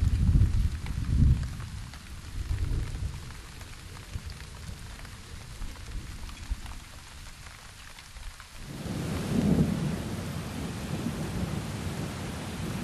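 Rain falling steadily, with low rolls of thunder rumbling in the first few seconds. About nine seconds in the rain swells into a louder, heavier downpour.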